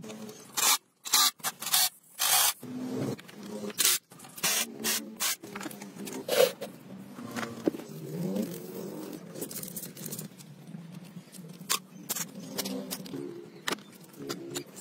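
A run of short scraping and hissing bursts from hands and tools working on a dismantled motorcycle engine, with a faint pitched sound bending up and down underneath about eight seconds in.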